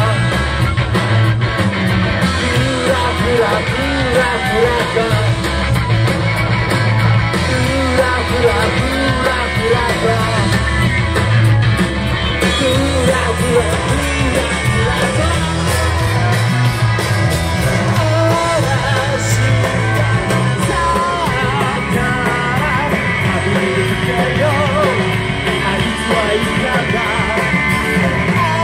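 Live rock and roll band playing: a singer singing into a microphone over electric guitar and drums, loud and continuous.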